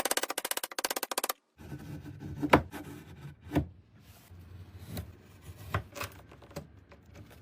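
A fast drum-roll rattle that cuts off about a second and a half in, followed by about five separate sharp knocks and taps, spaced a second or so apart, of wooden workpieces being worked or fitted together.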